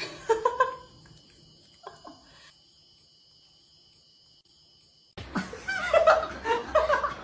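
Laughter, starting suddenly about five seconds in and running on in short bursts. Near the start there are a few brief voice-like calls, followed by a quiet stretch.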